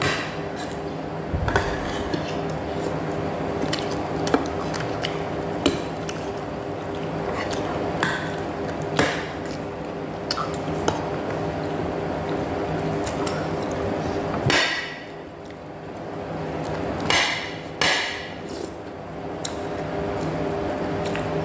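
A person eating noodle soup. A metal spoon clicks again and again against a ceramic bowl, and there are a few loud slurps of broth and noodles near the end, over a steady low hum.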